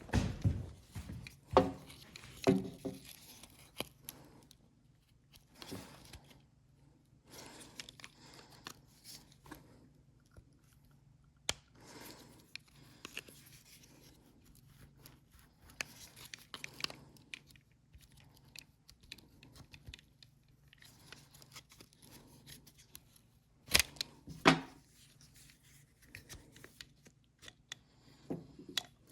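Small metal parts of a lawnmower carburetor being handled and worked on with hand tools: scattered clicks, taps and scrapes, with two sharp knocks less than a second apart near the end.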